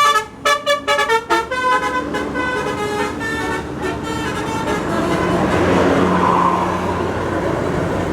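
A tour bus's telolet horn playing a quick melody of short notes that jump in pitch, dying away after about three seconds into steady engine and road noise.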